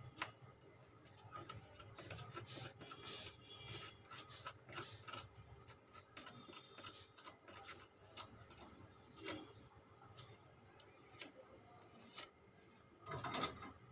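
Faint, irregular clicks, taps and light scraping of small tools and parts being handled on a mobile phone's circuit board during a charging-jack repair, with a slightly louder rustle near the end.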